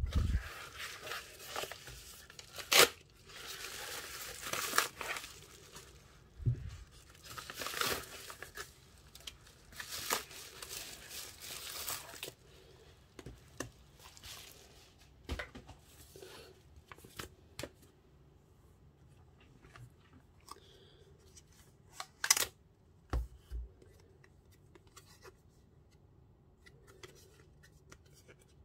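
Padded kraft-paper mailer being torn open, with bursts of tearing and crinkling paper and scattered clicks and taps of handling; the last several seconds hold only light handling.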